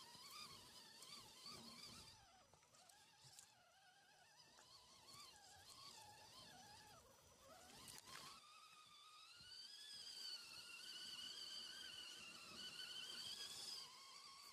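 Faint, thin electric-motor whine from a 1/10-scale RC Hummer H2 crawler on an SCX-10 chassis. Its pitch wavers up and down with the throttle, and there is a short click about eight seconds in.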